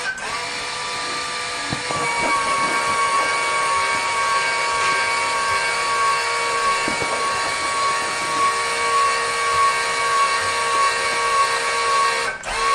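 Electric power tool motor running steadily with a high whine. It gets a little louder about two seconds in, and drops out for a moment near the end before running on.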